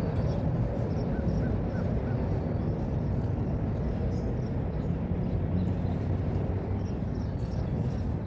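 Steady low outdoor rumble, with a few short faint bird calls about a second in and scattered faint high chirps.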